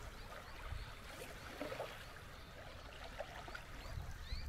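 Small waves lapping faintly at a lakeshore, with a low wind rumble. Near the end comes a run of short rising whistles, like the call of a whistling kite.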